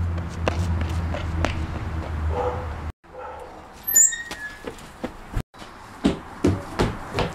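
A steady low rumble, then a short high-pitched squeak about four seconds in as a metal garden gate swings open. Near the end come a few sharp knocks, like footsteps on a wooden deck.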